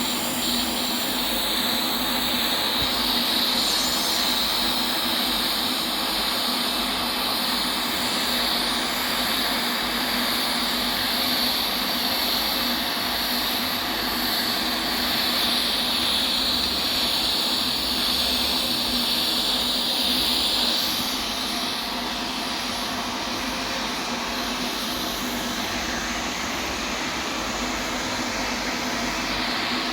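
Steady hiss of electric welding arcs laying the capping pass on stainless steel, with a steady low hum underneath. Part of the hiss drops out about two-thirds of the way through, as if one of two arcs stops.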